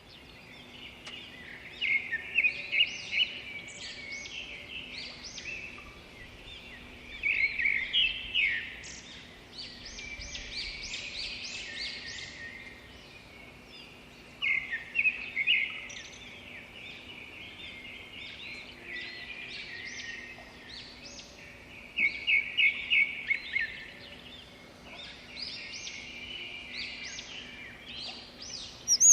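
Small birds chirping in repeated bursts of quick, high chirps, over a faint steady low hum.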